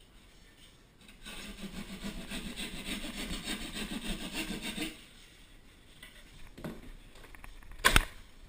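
Rapid scraping strokes of a hand tool working drywall for about four seconds, then a single sharp knock near the end.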